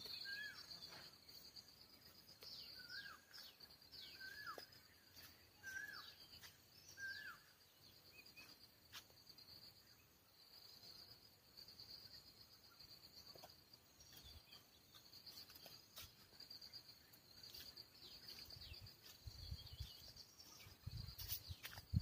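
Faint rural ambience: insects trill steadily at a high pitch while a bird repeats a short rising-and-falling note about six times in the first third, with other birds chirping now and then. Low thumps near the end.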